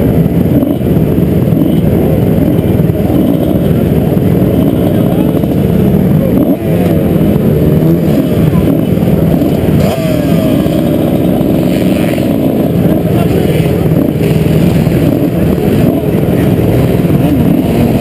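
Several motocross bike engines idling close together, with pitches that waver as throttles are blipped; the nearest bike's engine is the loudest.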